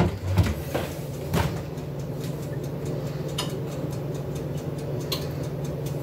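Toaster oven running, a steady low hum with its mechanical timer ticking, and a few sharper clicks in the first couple of seconds.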